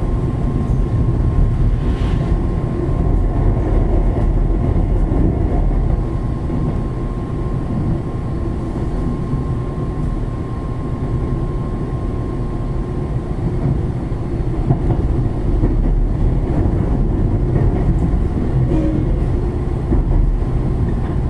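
KuMoHa 123 electric railcar running, heard from inside the car by the door: a steady low rumble of wheels and running gear. A faint steady whine fades out about halfway through.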